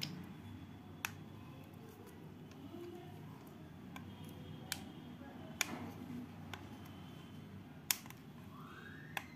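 Sharp plastic clicks and snaps, about seven spread irregularly with the loudest near the end, as the clear plastic housing of a Philips electric shaver is pried apart at its clips. Faint low background noise runs underneath.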